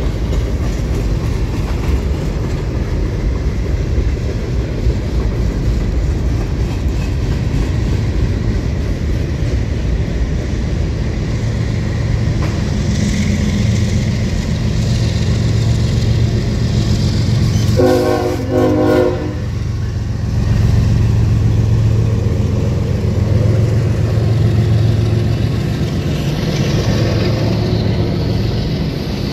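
Freight train rolling past with a steady rumble of cars on the rails, and a low diesel drone building partway through. About two-thirds of the way in, a train horn gives one short blast of about a second and a half.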